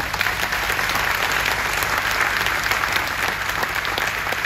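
A large audience applauding: many hands clapping together in a dense, steady wash.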